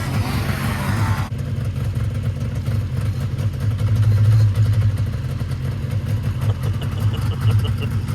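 Two-stroke snowmobile engines running flat out in a drag race, a steady loud drone. Music plays over the first second or so.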